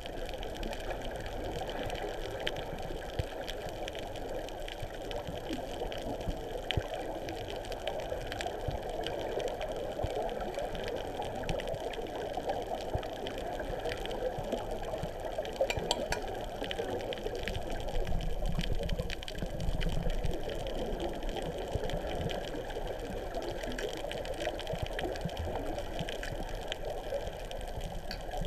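Underwater ambience picked up by a submerged camera: a steady, muffled rush of water with scattered faint clicks.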